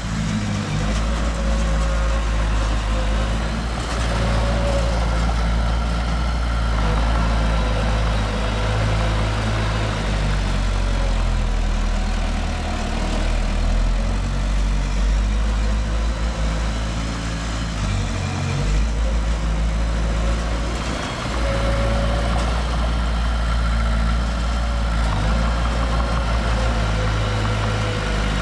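Heavy diesel engine of construction machinery running steadily with a deep, even drone, with a faint whine over it.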